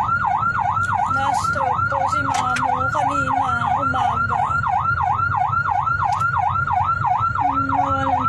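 Emergency vehicle siren in a fast yelp, its pitch sweeping up and down about three times a second, calling traffic to give way, over a low engine and traffic rumble.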